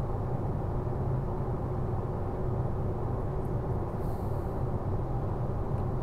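Steady road and engine noise inside a moving car's cabin: a low, even drone.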